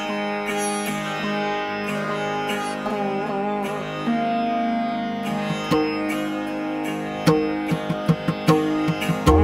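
Background music: a plucked string instrument with notes that bend in pitch over a steady drone, joined by sharp drum strokes about seven seconds in.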